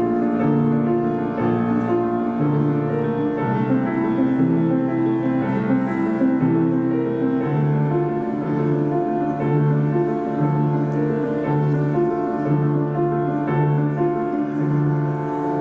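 Instrumental music led by piano, with slow held notes and chords changing about once a second.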